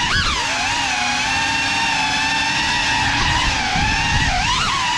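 Geprc Cinelog 35 FPV quadcopter's motors and propellers whining at a steady high pitch, with sharp throttle surges that bend the pitch up and back just after the start and again near the end.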